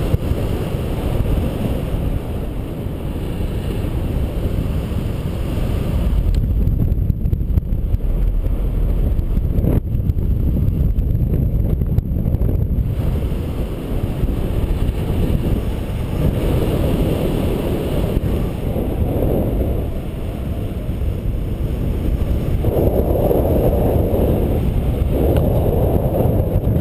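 Steady wind rush from the airflow buffeting the camera microphone in paraglider flight, a low rumble that swells and eases without a break.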